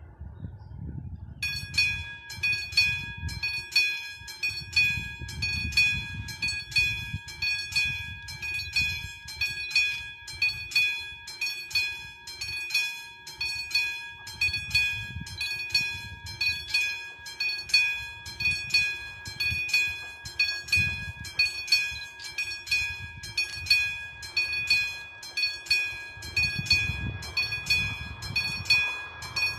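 Level-crossing warning bell, the classic mechanical bell on a VÚD 62 warning signal, starts ringing about a second and a half in with rapid, even strokes. It is the crossing's warning that a train is approaching.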